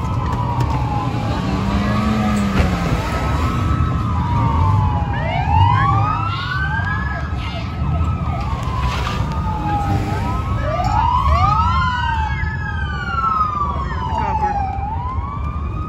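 Several police car sirens wailing at once, their pitches sweeping up and down out of step with each other, over a steady low rumble.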